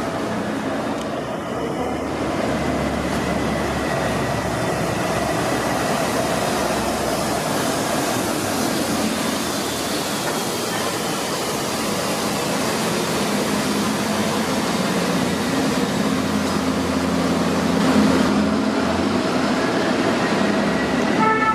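City buses running through a tiled underground bus tunnel: one pulls away from the platform and another approaches. The result is a steady, echoing vehicle rumble with a faint whine that glides in pitch.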